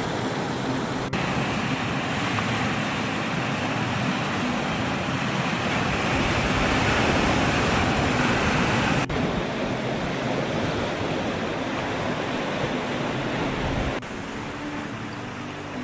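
Steady rush of ocean surf. It is broken by abrupt cuts about a second in and about nine seconds in, and drops quieter after another cut near the end.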